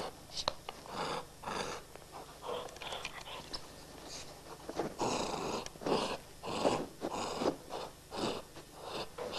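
A dachshund making short, repeated breathy vocal sounds, about two a second, getting louder about five seconds in.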